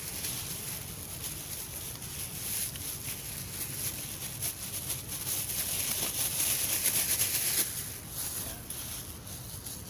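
Thin plastic bag crinkling and rustling as it is shaken and squeezed out by hand, loudest about six to seven and a half seconds in.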